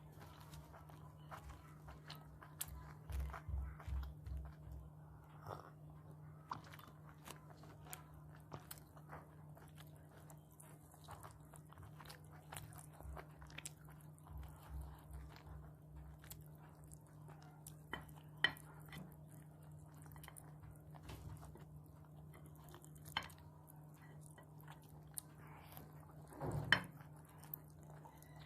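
Close-miked chewing and biting of food: wet mouth sounds and sharp clicks, with two spells of rhythmic jaw-paced chewing, a louder burst near the end, and a steady low hum underneath.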